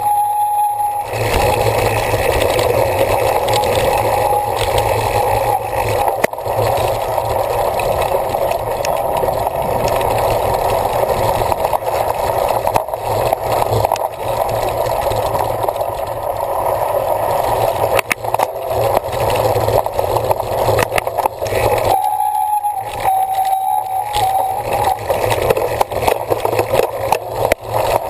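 Wind rushing over the microphone of a camera riding on a cyclocross bike, with the bike rattling and knocking over rough ground.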